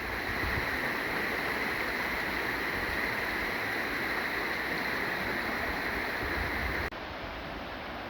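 Steady rushing of a running stream (a burn), with no distinct events. About seven seconds in it cuts abruptly to a quieter, duller hiss.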